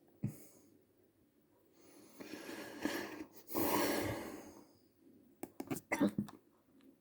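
A person with hiccups: a sharp hiccup just after the start, a long breath in the middle, and a quick run of hiccups near the end.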